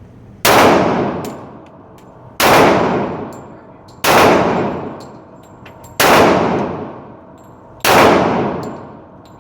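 Five shots from a large-calibre handgun, fired at a steady pace about two seconds apart. Each shot trails off over about a second and a half.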